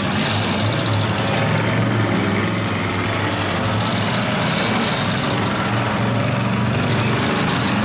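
Several demolition derby cars' engines running loudly at once, a steady dense din with no single crash standing out.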